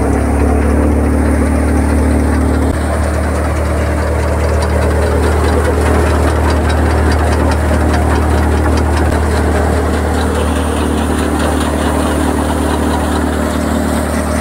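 Tractor-driven Ravindra thresher running at steady speed while threshing mustard: the tractor engine's deep, even hum with the machine's drum. A fine rapid rattle comes in from about five seconds in.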